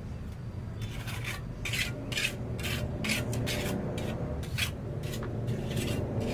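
Repeated rasping, scraping strokes of a hand tool worked against a hard surface, roughly two a second, over a steady low hum.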